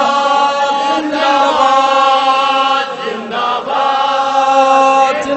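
Political slogan chanted in long, drawn-out sung notes, with a short break about three seconds in.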